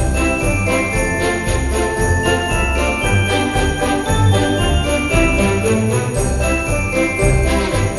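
Christmas music track led by jingle bells shaking to a steady beat, over a pulsing bass line and a held melody.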